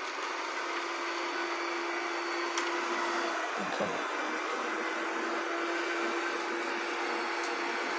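Dyson Spot+Scrub Ai robot vacuum running, a steady motor whir with a hum held at one pitch that briefly dips about halfway through.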